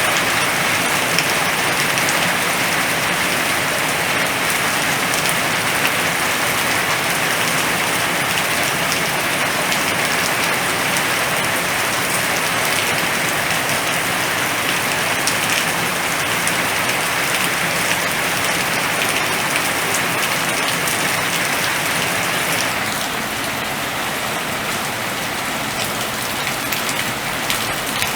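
Rain falling steadily in a storm, a dense even hiss of drops. It eases slightly about 23 seconds in.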